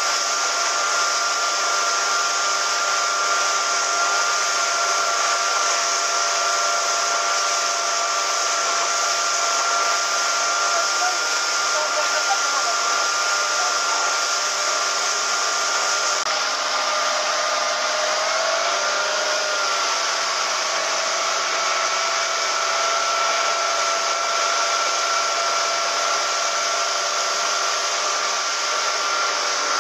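Small motorboat running at speed: a steady engine drone with a few held tones over a constant rush of wind and churning water. About two-thirds of the way through, the engine note wavers briefly, then settles again.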